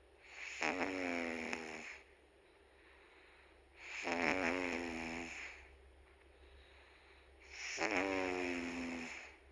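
Domestic cat snoring in its sleep: three snores about every three and a half to four seconds, each a pitched tone about a second and a half long, with quiet gaps between.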